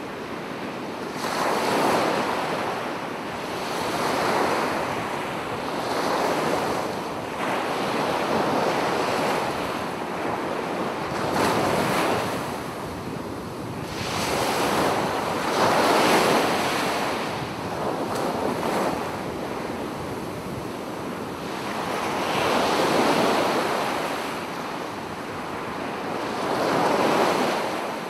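Sea surf washing in over a shallow sandy shore, swelling and easing every few seconds, with wind.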